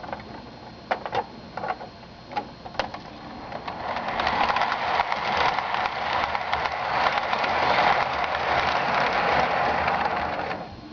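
HO-scale model train running on the layout track: a few separate clicks, then the rolling noise of wheels and motor that builds about four seconds in, holds steady and stops abruptly near the end.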